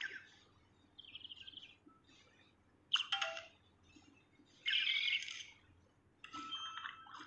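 A songbird singing a varied song: separate phrases of chirps, a rattling trill and loud sharp bursts, with short pauses between them.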